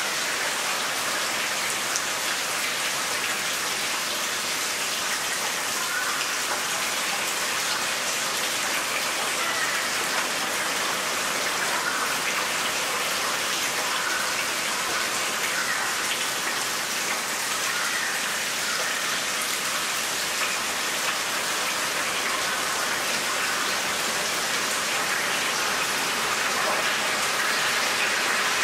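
Dense, steady rain texture played from an Omnisphere 2 patch built from field-recorded night rain. It is an even hiss of rainfall that grows slightly louder near the end.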